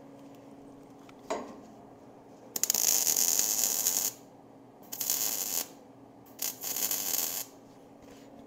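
MIG welding arc crackling in four bursts as thin-wall square tube is welded to heavier tube: a longer run of about a second and a half, then three shorter ones. A single knock comes about a second in.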